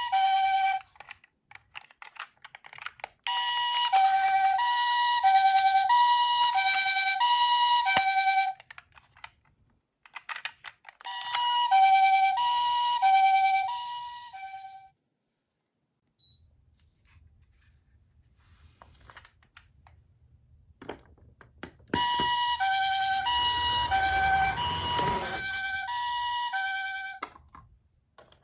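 A toy ambulance's electronic siren gives the Japanese two-tone ambulance call, alternating a higher and a lower note about every half second. It comes in several runs of a few seconds, broken by short clicks. In the last third there is a low rumble and a brief rush of noise under the siren.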